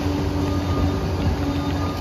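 Liebherr PR 746 crawler dozer running steadily, a deep diesel drone with a higher whine held over it and a fainter high whine that comes and goes.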